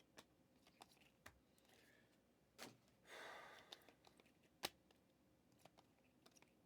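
Near silence with faint handling noises: scattered light clicks and a short rustle about three seconds in, with one sharper click after it. These fit trading cards and pack wrappers being handled.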